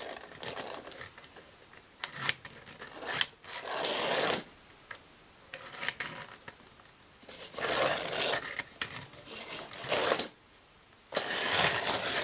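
Small electric motor and gearing of a vintage Tri-ang Princess Elizabeth toy locomotive whirring in stop-start spurts of about a second as it runs along the track. The stalling and hesitation is, he believes, caused by the track and not the train.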